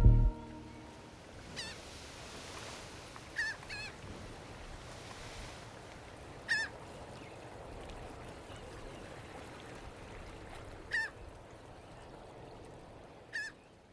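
A bird calling five times, each a short call a few seconds apart, over faint steady background noise.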